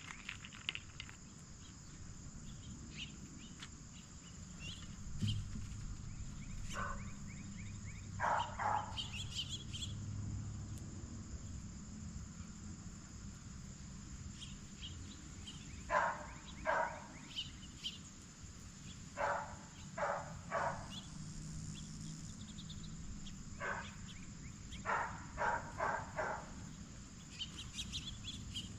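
Blue jays giving short, harsh jay calls in clusters of two to four, over a steady high drone of crickets.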